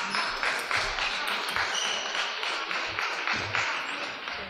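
Table tennis rally: the celluloid-style plastic ball clicking off the rackets and the table in quick succession, about three to four hits a second.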